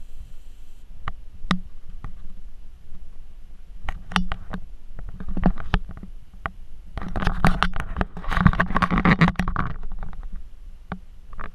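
Pembroke Welsh corgi puppy tussling with a plush hand puppet on a wooden floor: low growling with scattered clicks and scuffs, and a busier stretch of scuffling and rustling about seven to ten seconds in.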